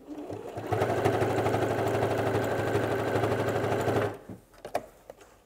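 Pfaff Passport 2.0 electric sewing machine stitching through layers of denim. It picks up speed within the first second, runs steadily for about three and a half seconds, then stops, with a couple of light clicks afterwards.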